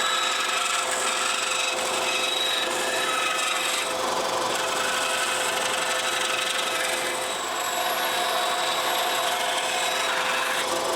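Continuous rasping of a tool working the knife or handle, with steady whining tones that shift pitch a few times, as from a motor-driven sander or grinder under changing pressure.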